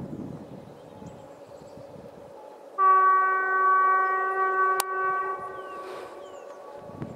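ET22 electric locomotive's horn sounding one long, steady blast of about two and a half seconds, starting a few seconds in: the warning blast of a train approaching the level crossing.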